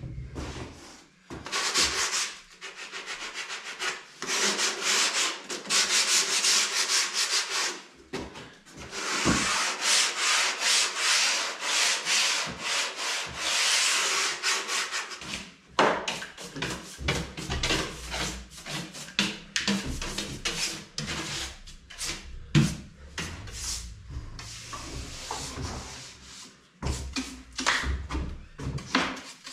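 Hand sanding of wooden wall panelling with sandpaper: fast back-and-forth rubbing strokes in long runs broken by short pauses, with an occasional knock.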